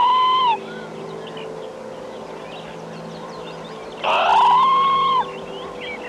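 A black-capped lory calling twice: loud, drawn-out calls that rise and then hold level. The first ends about half a second in and the second starts about four seconds in. Faint high chirping comes between them, over soft background music.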